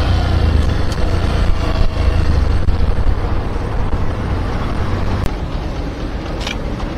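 Riding noise of a motorcycle on a city road at night: steady wind rumble on the microphone over the bike's engine and tyre noise. It grows quieter over the last couple of seconds as the bike slows.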